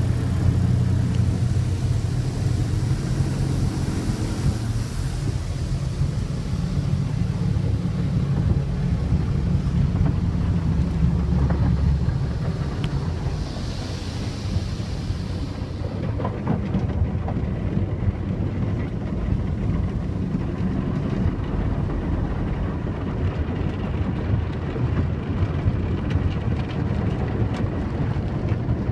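Automatic car wash heard from inside the car: a steady low rumble of the wash machinery, with hissing bursts of water spray over the first few seconds and again about halfway through.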